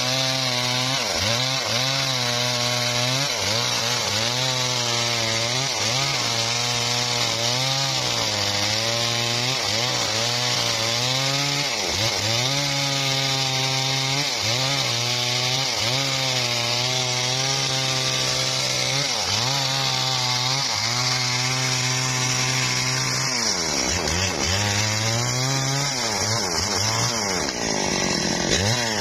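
Engine-driven saw cutting through a log, the engine labouring under load and dipping in pitch about once a second, with a steady hiss of the blade in the wood. Near the end the cutting hiss fades and the engine speed falls and rises again.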